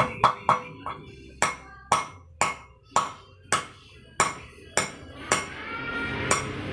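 Hammer blows on a steel drift in a motorcycle front wheel hub, about two ringing metallic strikes a second, working the wheel bearing during replacement of a worn front wheel bearing.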